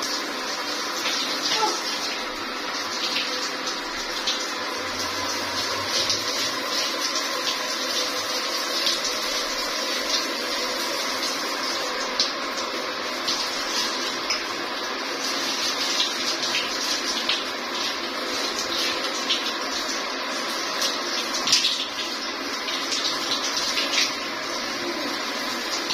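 Shower water running steadily onto hair and skin, with irregular splashes as hands work through wet dreadlocks.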